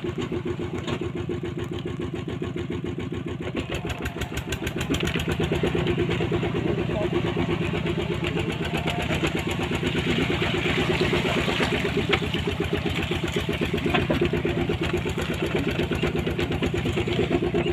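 Engine of a wooden-bed farm cart running steadily with an even, rapid pulse while the cart travels, getting louder about five seconds in.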